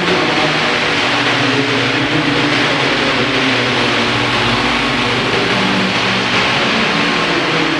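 Large 1:5 scale Vario Bell 430 radio-controlled helicopter in flight: its turbine and main rotor make a steady, even hiss over a low drone.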